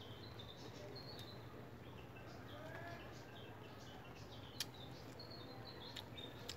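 Small birds chirping in short, high, repeated calls, with a few sharp crunches from a person chewing crisp raw green papaya; the loudest crunch comes about four and a half seconds in.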